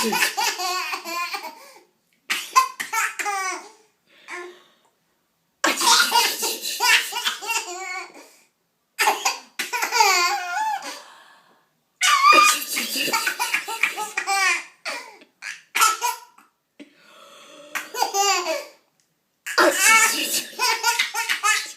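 A toddler's belly laughter in repeated bursts, each set off by an adult's loud fake sneeze: a short hissy sneeze, then a run of quick, high-pitched giggling syllables, over and over with short pauses between.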